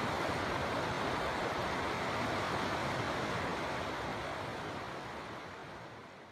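River water rushing in a steady, even roar that fades out over the last couple of seconds.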